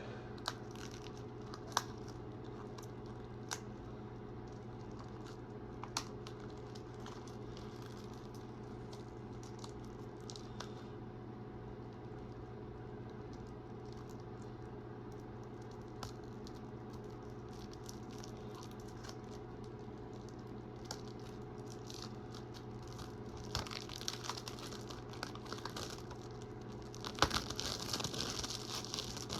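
Plastic shrink-wrap crinkling and tearing as it is peeled off a Blu-ray/DVD case, in bursts during the last several seconds. Before that, only a few faint clicks over a steady low hum.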